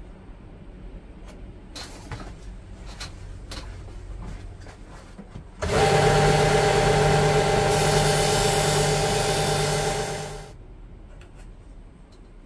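A small electric motor-driven shop tool runs for about five seconds with a steady whirr and hum. It starts suddenly and winds down at the end. Before it there are only a few faint ticks and taps.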